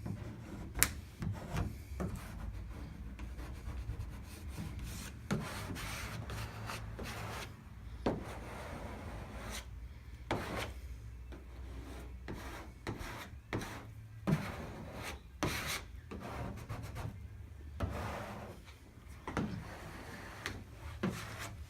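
Hands or a squeegee rubbing and scraping over a vinyl decal's transfer paper on the Jeep's body panel: irregular short strokes with a few sharp taps, over a low steady hum.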